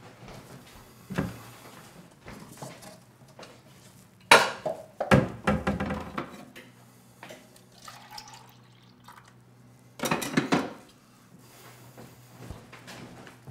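Dishes and cutlery clinking and clattering at a kitchen counter in several short bursts, loudest around a third of the way in and again near the end, over a low steady hum.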